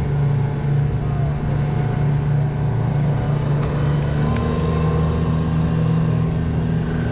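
Fishing boat's engine running at a steady speed while under way, a low even hum.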